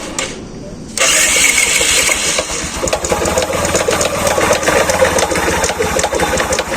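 Bajaj Platina's single-cylinder four-stroke engine catching about a second in and then running with a loud, rapid rattling clatter (khadkhadahat). The rattle comes from a broken camshaft bearing, which the mechanic finds completely failed when he opens the engine.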